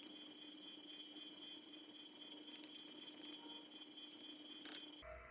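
Faint room tone: a steady low hum and hiss, with one brief click near the end.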